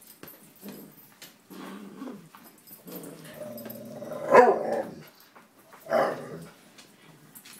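Small poodle growling in short rumbling bouts while it plays with a tug toy, breaking into two louder barks about four and a half and six seconds in.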